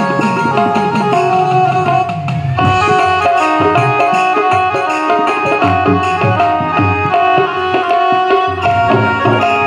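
Instrumental passage of a Hindi devotional bhajan. Tabla plays under held melody notes, its bass drum gliding down in pitch over the first couple of seconds.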